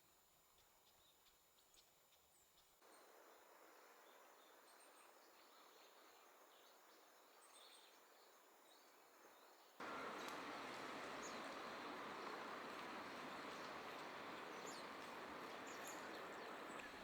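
Quiet outdoor ambience with a few faint, short, high chips and chirps from small birds. The background hiss jumps up abruptly twice, about 3 s and 10 s in.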